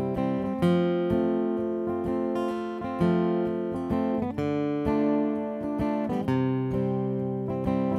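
Acoustic guitar strummed in a slow chord pattern, each stroke left ringing, with the chords changing every few strokes: an instrumental intro before any singing.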